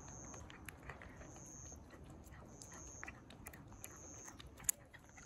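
Domestic cat licking and chewing lickable paste from a squeeze tube: soft, wet smacking clicks, with one sharper click near the end.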